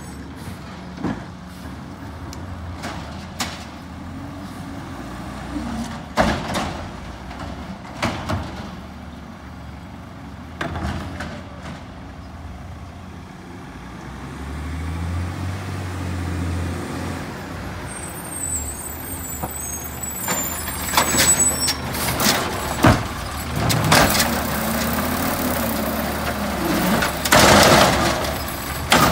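Mack LEU garbage truck with an Amrep automated side-loader arm, running on natural gas, working along the street: engine running, air-brake hisses, and scattered knocks and clunks from the arm handling carts. It grows louder in the last several seconds as the truck pulls up close and lifts a cart.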